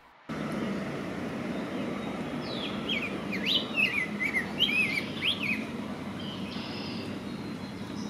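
Rose-breasted grosbeak singing a sweet, melodic, robin-like phrase of quick warbled notes that rise and fall. The phrase starts about two and a half seconds in and lasts about three seconds, over a steady low background rumble.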